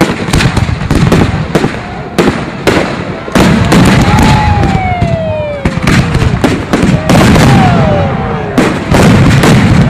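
Firework display: aerial shells bursting in rapid, overlapping bangs, which grow denser and louder about three seconds in. Through the bursts come a few whistling tones that fall in pitch.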